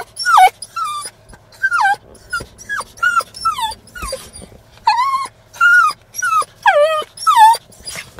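A dog whining and yelping in a rapid series of about a dozen short, high-pitched cries, each sliding down in pitch.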